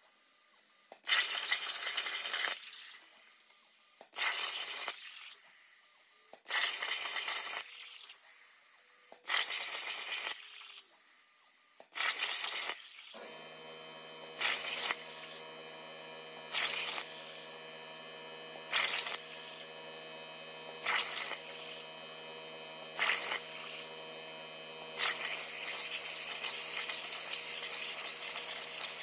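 CNC plasma cutter: short hissing bursts every two to three seconds, with a steady many-toned hum starting about halfway through. Near the end comes a continuous loud hiss as the plasma arc cuts the sheet metal and throws sparks.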